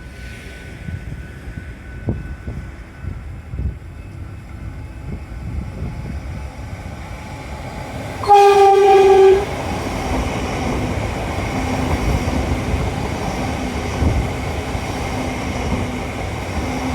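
Electric suburban train sounding one horn blast of about a second, a single steady note, about halfway through, then the train running close by with a steady rumble and hum.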